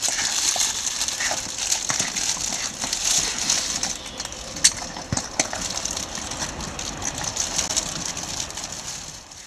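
A German shepherd puppy nosing over a mat and picking up treats: scattered small clicks and crackles over a steady outdoor hiss, with one sharper click about halfway through.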